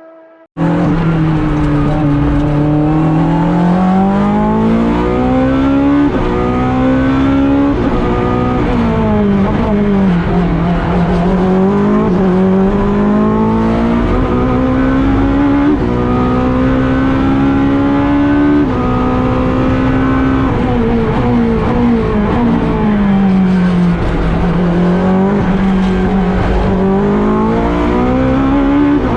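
Ferrari 458 GT3 racing V8 at high revs, its pitch climbing through gear upshifts and sweeping down on downshifts, over and over. It cuts in abruptly about half a second in.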